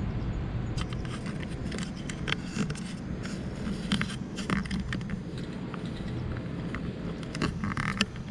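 Footsteps scuffing and clicking irregularly on stone paving, over a steady low rumble.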